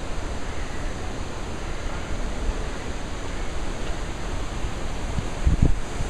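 Wind buffeting the microphone: a steady low rushing noise, with a stronger gust about five and a half seconds in.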